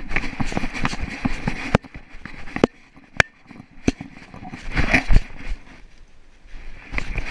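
Knocking and rubbing of a camera mounted on a small dog on the move, jolted at each step, with the dog's paws on gravel. Scratchy rustling bursts at the start and again about five seconds in, with calmer stretches between.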